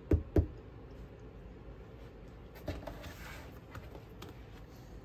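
Cardboard retail box of a phone gimbal knocked down on a tabletop, two quick knocks right at the start, then a soft rustle and scrape of the box being picked up and handled.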